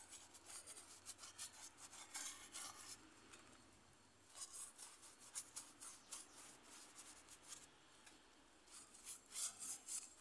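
Faint scratchy strokes of a paintbrush working wet base-coat paint over the rough concrete surface of a swan sculpture, in uneven runs with short pauses.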